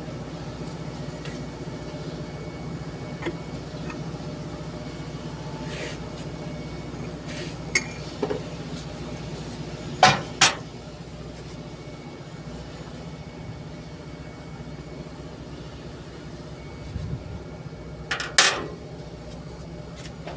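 Sharp metallic clanks and clinks of tools and parts striking metal: one about eight seconds in, a loud pair about ten seconds in, and a short cluster near the end. A steady low machine hum runs underneath.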